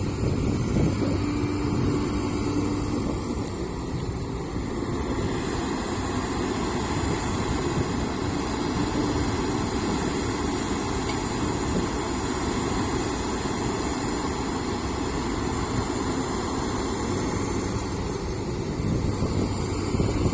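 Heavy earthmoving machinery's diesel engine running steadily under work, with a faint high whine that wavers slowly in pitch.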